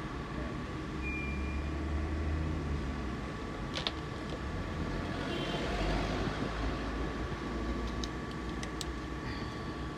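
Steady mechanical hum with a faint constant whine, and a few light clicks of handling, one about four seconds in and a couple more around eight to nine seconds.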